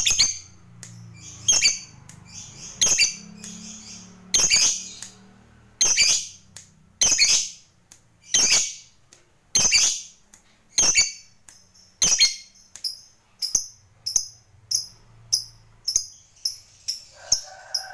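Lovebird giving a series of short, shrill chirps, about one every second and a half, turning into shorter, quicker chirps about two a second over the last few seconds.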